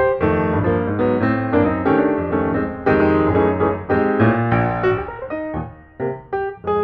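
Background piano music, a quick run of struck notes with a short lull near the end.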